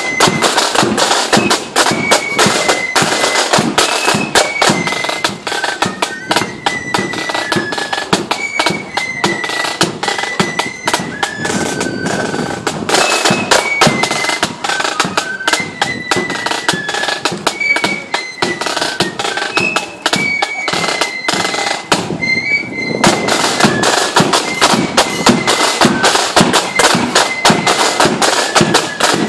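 Marching flute band playing: a high flute melody over rapid snare-drum beats and rolls. The drums drop out for about a second about three-quarters of the way through while the flutes carry on.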